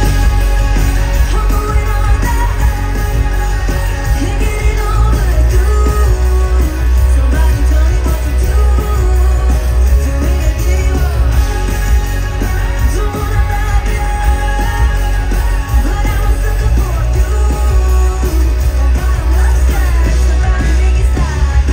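Loud amplified pop music with a singer over a strong, steady bass line.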